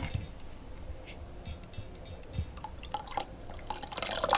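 Melted butter poured from a plastic jug into a glass bowl of milk and eggs, a liquid pouring and splashing that starts about four seconds in, after a few soft clicks.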